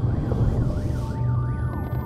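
A siren-like warbling tone that rises and falls several times a second and fades near the end, over a steady low drone, as sound design in an animated advert's soundtrack.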